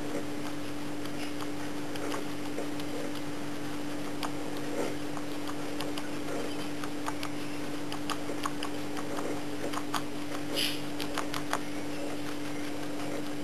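Guinea pig chewing spinach leaves: quick, irregular crisp clicks of its teeth, busiest in the second half, over a steady low hum.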